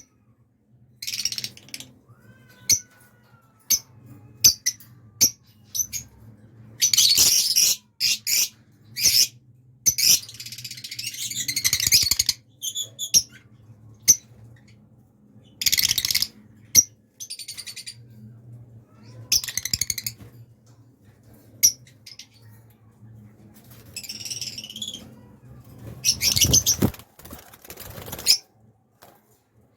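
A pair of small pet parrots chirping and chattering: many short high calls in irregular bursts, with longer harsh chattering runs, over a low steady hum.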